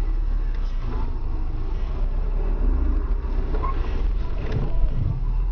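Steady low rumble of a car's engine and road noise heard from inside the car through a dashcam microphone, with a few faint knocks.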